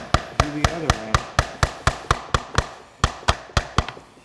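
Small ball-peen hammer tapping rapidly on an ABS pump housing, sharp metallic knocks about four a second with a short pause near three seconds in, to knock loose a section held on only by O-rings.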